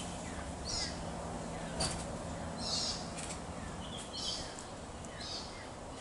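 Galahs screeching in the distance: several short, harsh, faint calls a second or two apart over a steady background hiss.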